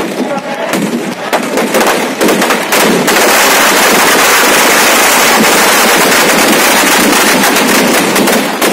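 Firecrackers packed inside a burning effigy going off: separate bangs for the first few seconds, then a dense, continuous rapid crackle that thins out near the end.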